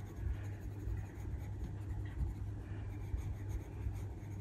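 Oil-based coloured pencil scratching lightly over the paper of a colouring book in small shading strokes, over a steady low hum.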